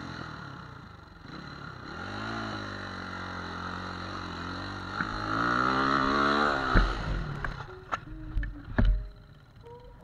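Enduro dirt bike engine revving hard on a steep hill climb, its pitch rising to the loudest point about six seconds in, then cutting off suddenly. Several thumps and clatters follow as the bike goes down on the slope.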